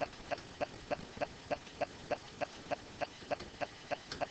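Steady, evenly spaced ticking, about three ticks a second.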